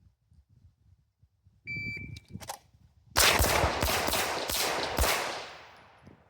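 A shot timer gives its short start beep. About a second later comes a fast string of pistol shots lasting about two seconds, and the echo of the last shot fades out.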